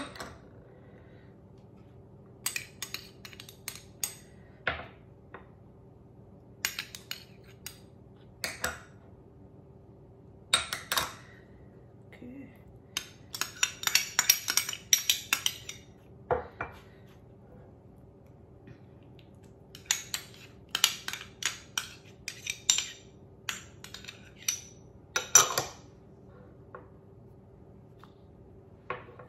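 A spoon clinking and scraping against small ceramic bowls and a glass mixing bowl as sauces and spices are tipped in, with the small bowls set down and stacked. The clinks come in scattered clusters, busiest around the middle, over a faint steady hum.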